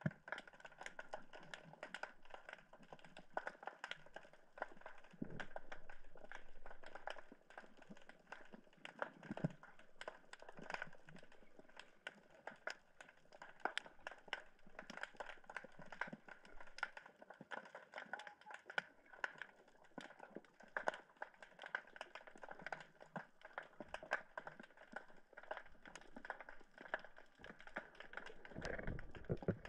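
Dense, continuous underwater crackling of many small sharp clicks, typical of snapping shrimp heard through an underwater camera, with a louder low rush of water near the end.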